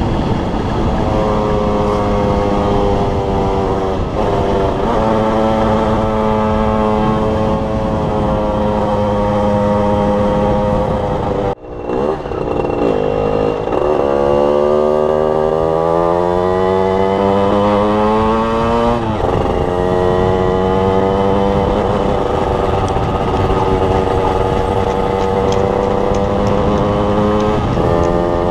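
Two-stroke 50cc engine of a Derbi Senda Xtreme supermoto with a Voca Rookie expansion-chamber exhaust, ridden under throttle. The revs hold fairly steady, with short breaks at gear changes. About halfway through, the sound briefly drops out; then the revs climb steadily for several seconds and fall back at the next shift.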